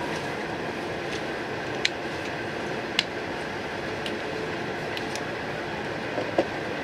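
Steady ventilation and air-conditioning hum inside the cabin of a stationary E4 series Max Shinkansen car, with a few sharp clicks.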